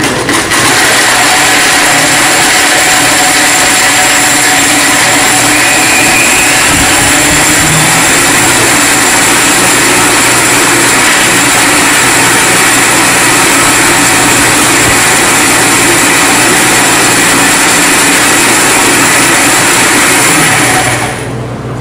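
Vitamix Drink Machine Advance blender running at full speed, blending a thick green drink in its jar: a loud, steady whir that starts as the machine is switched on and cuts off about a second before the end.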